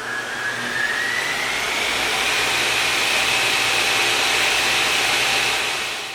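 A machine's motor spinning up with a rising whine, then running steadily at high speed over a rushing hiss, fading out near the end.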